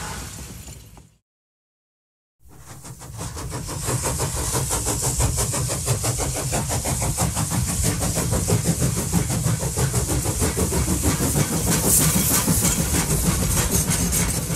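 Music fades out about a second in. After a second of silence, a steady mechanical running sound with a rapid pulsing rhythm fades in, like an engine or train running.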